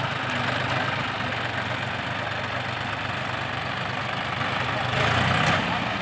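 Diesel tractor engines running steadily while a John Deere 5105 pulls a tractor stuck in mud on a tow rope. The sound gets louder briefly about five seconds in.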